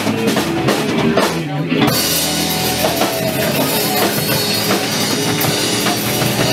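Live blues-rock band playing an instrumental passage: two electric guitars over a drum kit. The band's sound turns fuller and brighter from about two seconds in.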